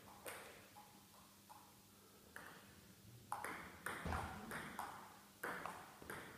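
Celluloid-type table tennis ball being struck back and forth by rubber-faced bats and bouncing on the table in a rally: sharp pings that come roughly every half second from about two seconds in, each followed by a short echo. A couple of single bounces come before the rally starts.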